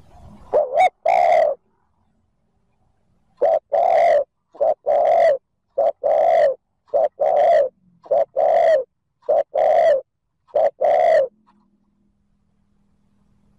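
Spotted dove cooing: about seven loud phrases, each a short note running into a longer, slightly falling coo. This is the fast, insistent cooing of a decoy male used to call in wild doves.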